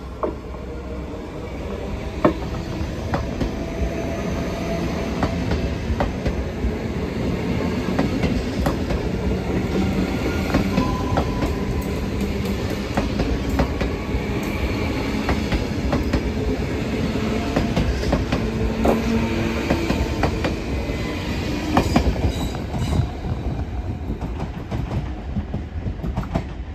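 Two coupled NS VIRM double-deck electric trains running past: a rumble of wheels on rail with many sharp clacks as the bogies cross rail joints and points, and short spells of wheel squeal. It builds over the first few seconds and fades as the train draws away near the end.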